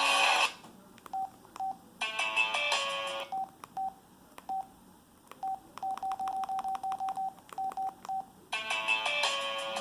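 LG Helix UX310 cell phone's keypad beeps: short beeps at one steady pitch, first one by one and then a fast run of about ten, typical of stepping through the ringtone menu. Polyphonic ringtone music cuts off about half a second in, a brief snatch of a ringtone preview plays about two seconds in, and a new ringtone starts near the end.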